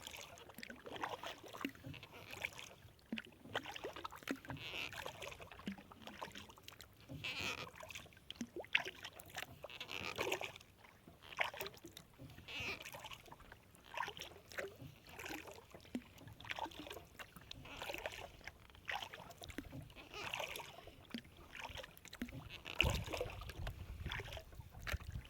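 Kayak paddle strokes in calm water: the blade dips and pulls with drips and small splashes, about one stroke every two and a half seconds. A low rumble comes in near the end.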